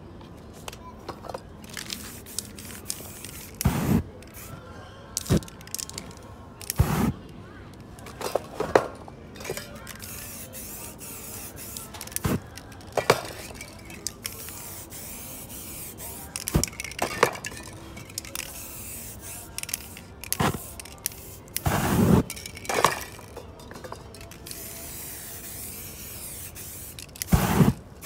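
Spray-paint art in progress: short hisses from aerosol spray cans at irregular moments, mixed with clicks and knocks of cans and a palette knife on the canvas and table. Near the end a spray can's jet is set alight in a burst of flame to dry the paint.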